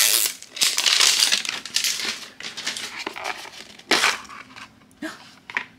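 Thin plastic wrapper crinkling and tearing as it is peeled off a small plastic blind-box case, then a few sharp clicks near the end as the case is opened.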